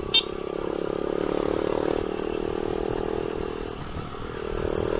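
Motorcycle engine running steadily while riding in gear, easing off briefly about four seconds in and then picking up again.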